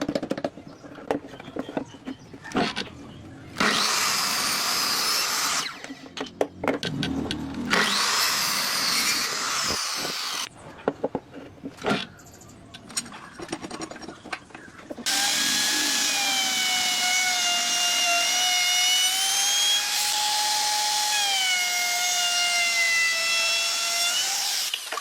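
Electric power tools working wood: short noisy bursts of cutting or sanding with knocks in between, then for the last ten seconds or so a steady motor whine, like an electric drill, that sags and recovers slightly under load.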